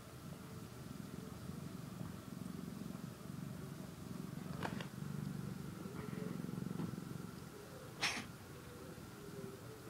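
Cat purring: a low rumble that swells and fades about once a second with each breath. Two short sharp clicks cut in, about halfway through and near the end, the second louder.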